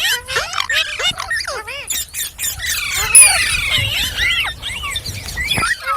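Green parrot giving a rapid string of shrill squawks and gliding chirps, several calls overlapping, busiest about halfway through.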